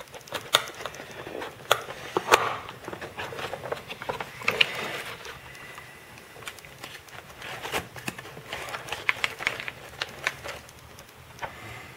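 Product packaging being opened and handled by hand: scattered sharp clicks and snaps with short bursts of rustling.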